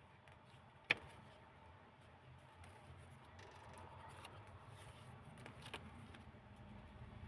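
Faint rustling of old book-paper pages being handled and turned in a handmade junk-journal book, with one sharp click about a second in and a softer click a little before the end.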